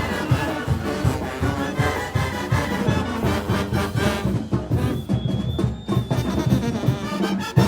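Mexican banda brass band playing live: brass and drums together in a steady rhythm, with a sharp bang near the end.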